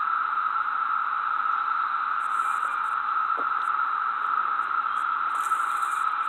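A steady, even hiss that does not change, with faint short high chirps above it from a couple of seconds in.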